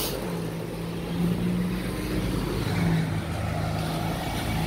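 Road traffic close by: a car and a box truck with their engines running, a steady low hum with road noise.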